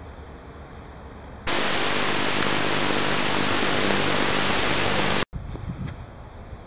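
Loud steady static hiss with a low hum under it, the audio of a grainy analog wireless-camera feed. It starts suddenly about a second and a half in and cuts off abruptly near the end. Faint outdoor background sound comes before and after it.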